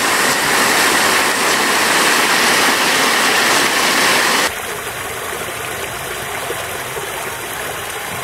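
Powerful vertical water-fountain jets gushing: a loud, steady rushing hiss. About four and a half seconds in it cuts off abruptly to a quieter steady hiss.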